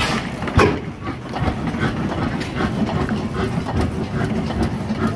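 Fairbanks-Morse 15-25 hp tractor's engine running, low and steady, with a single sharp knock about half a second in.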